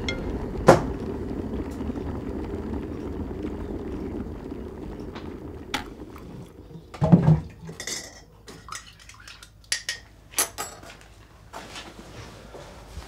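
Kettle, mug and teaspoon handled at a kitchen counter. A low rumble fades over the first few seconds, then there is a loud knock a little past the middle, followed by a run of light clinks of spoon and crockery.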